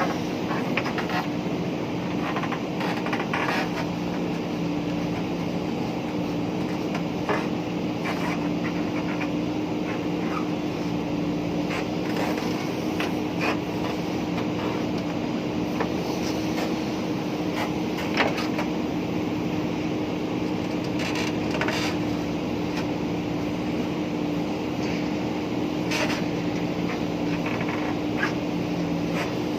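Diesel engine of a JCB backhoe loader running steadily under work, with scattered short knocks and clanks from the digging.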